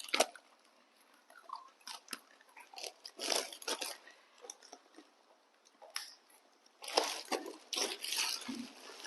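Crunchy snack being bitten and chewed: irregular crunches and crackles, with denser runs about a third of the way in and again near the end.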